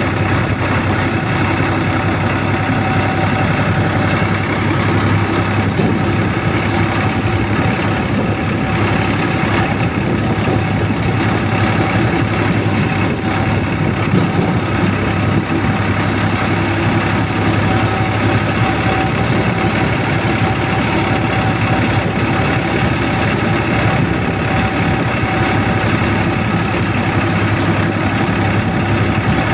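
Vehicle engine running steadily: a constant, unchanging hum.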